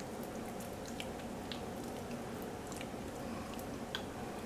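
Faint wet squishing and small ticks of fingers smearing French onion dip into a flattened deer steak, over steady room hum.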